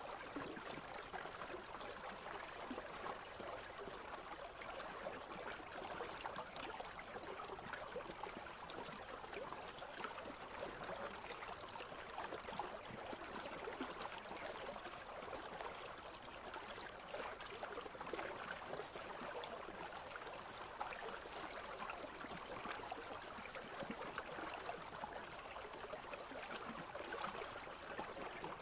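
Country stream running: a steady, even babble of flowing water.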